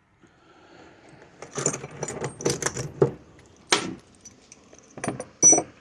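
Small metal die grinder bits clinking and rattling against each other and the steel tool box as they are handled and put into a drawer. The run of clinks starts about a second and a half in, with a few sharper knocks near the end.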